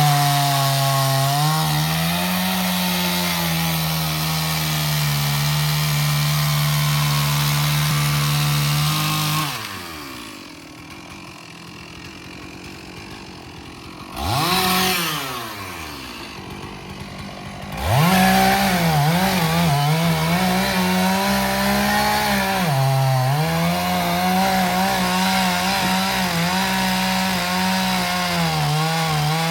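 Two-stroke chainsaw running at full throttle, then dropping to idle about a third of the way through, with a short rev in the middle. It comes back to full throttle with its pitch wavering and dipping as it bites into wood.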